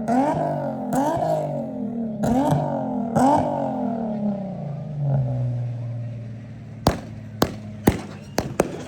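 Four rising-and-falling wails, then from about seven seconds in a quick string of sharp firework pops and crackles.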